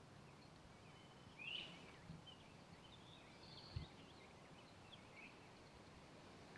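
Faint woodland birdsong: scattered short chirps and calls, the clearest about a second and a half in, over a quiet outdoor background. A single soft low thump comes a little past the middle.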